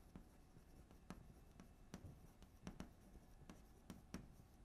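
Chalk writing on a blackboard: faint, irregular taps and short scrapes.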